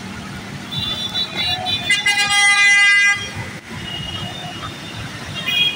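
Road traffic with a vehicle horn blaring for about a second, starting about two seconds in; other horns sound more faintly before and after it.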